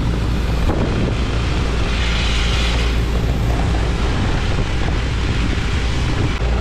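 Shotcrete being sprayed from a hose nozzle with compressed air: a loud, steady hiss of air and concrete spray over a continuous low rumble.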